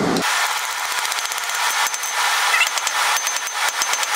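Ball-pein hammer striking a hot square steel bar on an anvil in a quick, irregular run of sharp metallic blows. A faint high ring comes through near the end.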